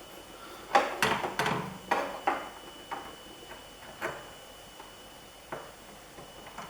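Irregular clicks and light knocks of a 4-pin trigger control cable connector being fitted to a welder's module by hand. A quick cluster comes in the first two seconds, then single clicks every second or so.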